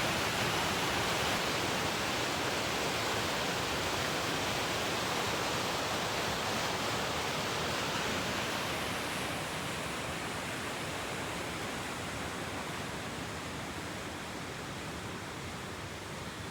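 Steady rushing of a waterfall running high with spring mountain runoff, easing a little and losing some of its hiss about halfway through.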